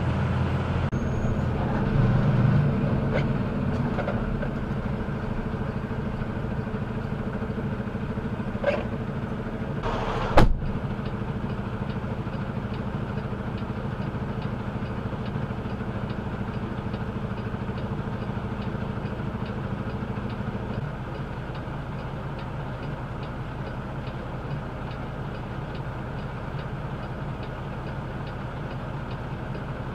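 Semi-truck's diesel engine running steadily, heard from inside the cab, with one sharp click about ten seconds in. In the later part the truck sits idling, with a faint regular tick about twice a second.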